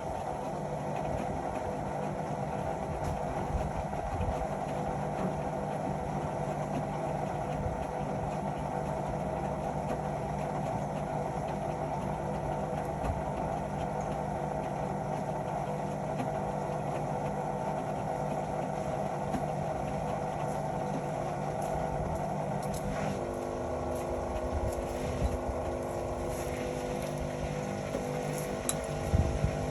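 Indesit Innex XWA 81252 front-loading washing machine running with a steady motor hum; about two thirds of the way through the hum shifts to a new, higher set of tones as the drum's motor changes speed, with a few light clicks near the end.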